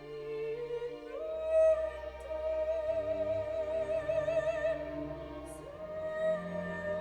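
Opera-style classical music played back through DALI bookshelf speakers: long held notes with wide vibrato, rising in pitch about a second in and again near the end, over a low sustained orchestral accompaniment.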